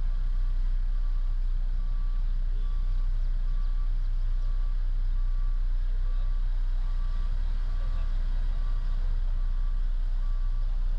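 Reversing alarm of a heavy construction machine beeping steadily, a little more than once a second, over the low, steady rumble of its diesel engine.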